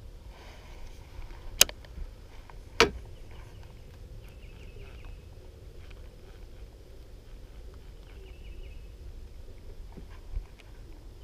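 Fishing gear being handled in a kayak: two sharp clicks about a second apart near the start, over a low steady rumble. A few faint, short chattering trills come three times.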